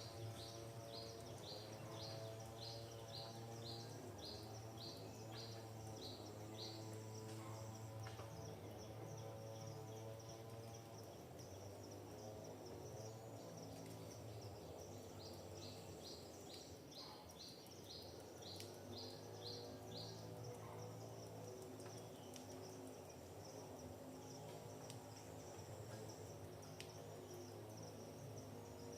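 Forest ambience: a bird sings two runs of short, falling whistled notes, about two a second, one near the start and one in the middle. Underneath are a steady high insect buzz and a faint low hum.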